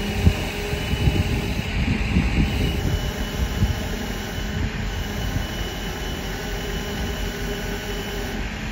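A flatbed tow truck's engine running steadily with a constant hum. A few low thumps come in the first four seconds, the sharpest just after the start.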